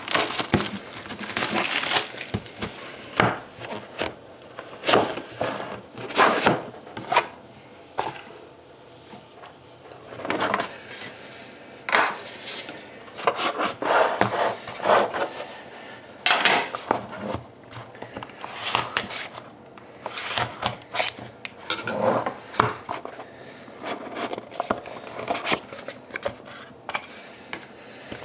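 A trading card box and its pack being opened and the cards handled: irregular scrapes, taps and rustles of cardboard and card stock.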